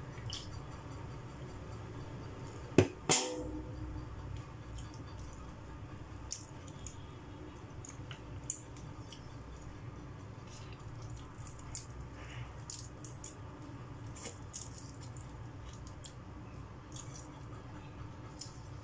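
Close-up eating sounds of shrimp eaten by hand: chewing, with small scattered clicks and smacks from peeling shells and picking at rice. A sharp double knock about three seconds in, the loudest sound, with a brief ring after the second hit.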